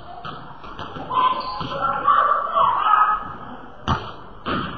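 A basketball bouncing on a hardwood gym floor, each bounce a sharp thud echoing in the large hall, the two loudest near the end.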